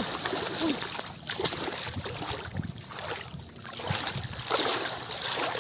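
River water splashing and sloshing, with a few short low knocks.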